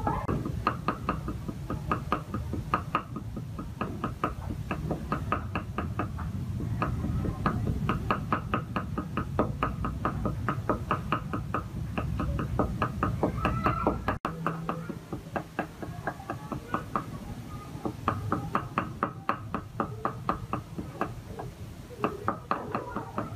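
Cleaver mincing red chilies on a round wooden chopping board: rapid, even knocks of the blade on the wood, several a second, with a short break about fourteen seconds in.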